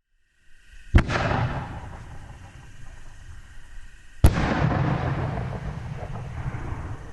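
Growler 5-inch canister artillery shells from World Class Fireworks going off: two sharp booms about three seconds apart, each trailing off in a long rumbling decay.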